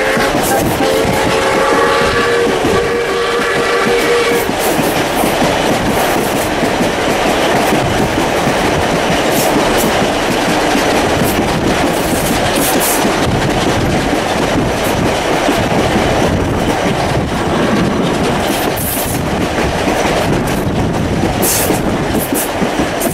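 Steam locomotive whistle sounding as a chord of several steady tones, starting about a second in and lasting around three seconds. Under it, the steady running noise of the carriages on the track, heard from a carriage window.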